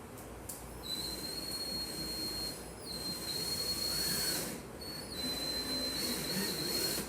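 A small power tool's motor running with a high steady whine and hiss, in three spells with short breaks between them.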